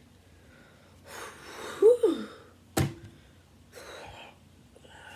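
A person's sharp gasp, breathy with a short squeaky rise and fall in pitch, then a single sharp click about a second later.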